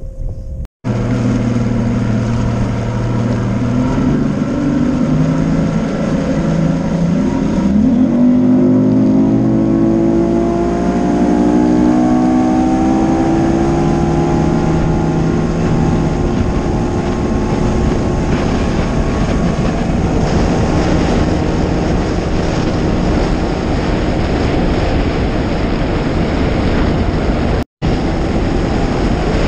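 Bass boat's outboard motor running low, then revving up with a rising pitch as the boat accelerates onto plane; after that it runs at speed under a steady rush of wind and water.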